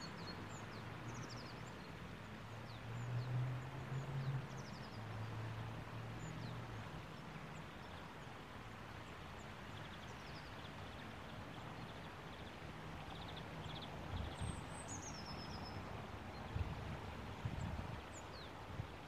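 Outdoor ambience of small birds giving scattered short chirps, with one longer falling call about two-thirds of the way through, over a steady hiss. A low hum sits under the first few seconds, and low gusts of wind rumble on the microphone near the end.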